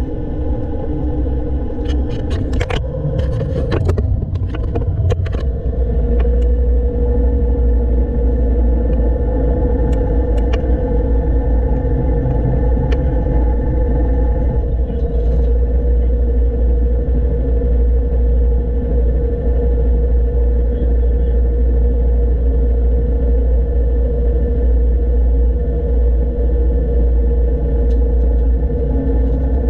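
The diesel engine of a 1970s Poclain LC80 excavator running with a steady low rumble; the owner suspects a misfire or fueling issue. Several sharp clanks come about two to five seconds in.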